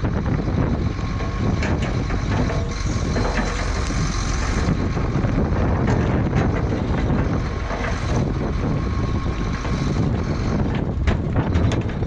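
SHACMAN dump truck's diesel engine running steadily while its raised bed tips out a load of rock and dirt, with stones clattering down onto the pile now and then, a few more near the end.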